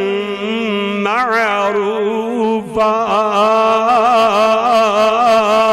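A man's voice chanting through a microphone in long, drawn-out melodic phrases, the held notes quavering in pitch: a preacher's sung recitation in the middle of a sermon.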